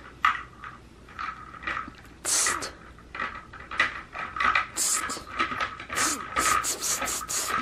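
Plastic toy vehicles clattering and clicking against the hearth and toy set as a toddler plays with them, a quick irregular string of light knocks, with a faint steady high tone running beneath from about a second in.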